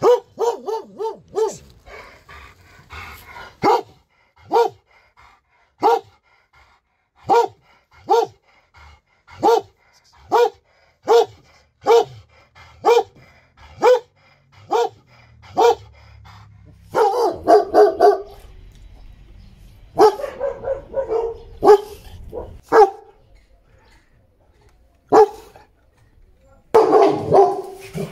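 Dog barking repeatedly and loudly. A quick run of barks at the start, then single barks about one a second, then rapid flurries of barking in the second half.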